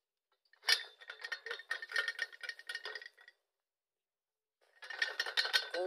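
Rapid rattling and clinking in two bursts: the first lasts about two and a half seconds, and the second starts a second and a half after it ends and runs into speech.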